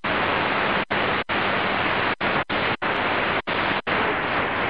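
Shortwave static hiss from a Qodosen DX-286 receiver's speaker, with no station coming through. It cuts out briefly seven times as the tuning steps up through the 31-metre band.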